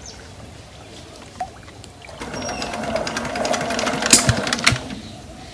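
Small single-cylinder diesel irrigation pump engine turned over by hand for about two and a half seconds, a rapid mechanical clatter that starts about two seconds in and dies away without the engine catching.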